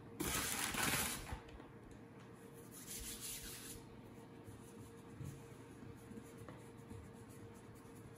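Two bursts of rustling, rubbing noise from hands working on a kitchen counter: a louder one lasting about a second near the start, and a weaker one about three seconds in. A faint steady hum runs underneath.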